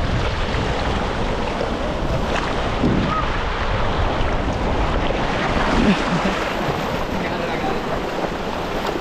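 Surf washing onto the beach, with wind buffeting the microphone as a low rumble that eases about two-thirds of the way through.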